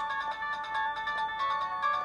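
Nokia 220 ringtone playing: a quick electronic melody of short notes in several parts at once.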